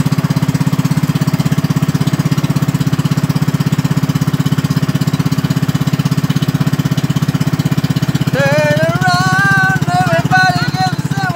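An outrigger boat's engine running steadily underway, a low rumble with a fast, even pulse. About eight seconds in, a high voice with drawn-out, wavering notes joins over the engine.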